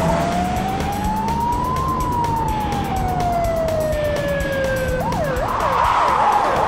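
Ambulance siren: one slow wail rising and then falling, then about five seconds in it switches to a fast yelp, sweeping up and down a few times a second.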